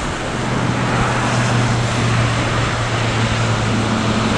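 Steady rushing noise of storm wind, with a steady low engine-like hum underneath.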